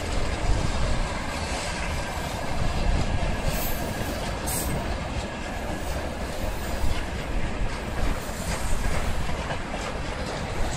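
Freight train's loaded flatcars rolling past at close range: a steady rumble of steel wheels on the rails, with irregular clacks as the wheels cross the rail joints.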